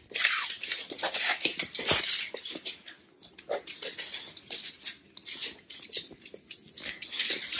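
Cavalier King Charles spaniel moving about excitedly on a hardwood floor close to the microphone: a string of quick claw clicks and scuffles, with short breathy sniffing sounds.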